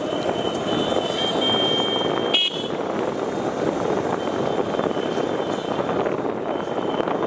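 Steady road and wind rumble of a vehicle moving along a town street. Over the first two seconds a thin high-pitched tone sounds and ends suddenly with a click; fainter high tones return briefly later.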